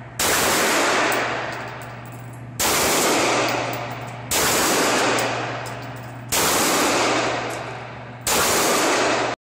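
Five handgun shots fired one at a time, about two seconds apart, in an indoor shooting range; each shot is loud and rings on in the range's echo, fading over a second or two. The sound cuts off suddenly at the very end.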